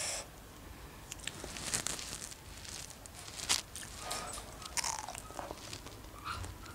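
Close-up eating sounds of biting into and chewing fresh strawberries: soft wet bites, mouth clicks and crunches, with a few louder bites spread through.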